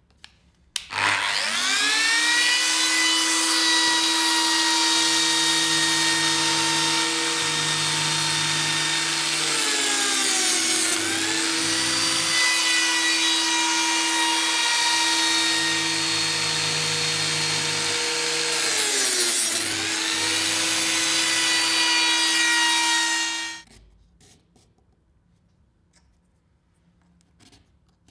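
High-speed cutting motor spinning up to a steady high whine and machining wood panel grooves for Clamex P-14 connectors. Its pitch sags twice under load and recovers, and it cuts off suddenly near the end.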